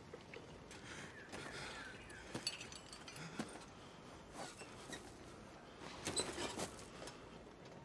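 Faint, scattered clinks of metal and rustling as chained captives shift, with a few sharper clinks about two and a half, three and a half and six seconds in.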